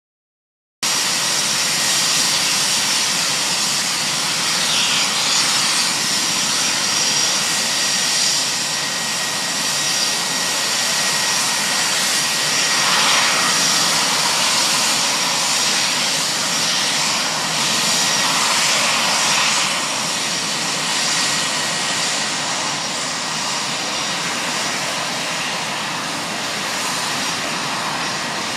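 Fighter jet engines running loud and steady on the runway, a continuous roar with a high steady whine over it. It starts suddenly about a second in.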